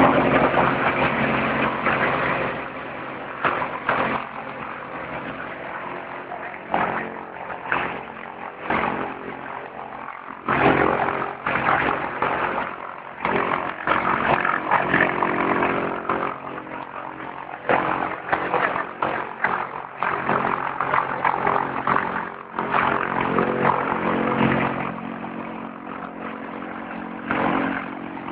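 Jabiru light aircraft's air-cooled flat engine running on the ground with the propeller turning, loudest in the first two seconds or so and then steady, with irregular loud gusts of noise over it.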